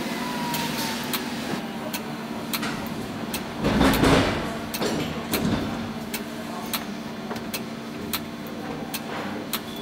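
Diatonic button accordion playing an instrumental passage, with sharp clicks about twice a second keeping the beat and a louder swell about four seconds in.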